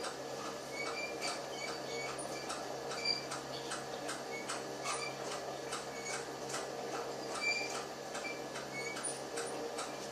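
Bottle conveyor on a production line running: a steady hum under a stream of irregular ticks and clicks, with short high squeaks every second or so.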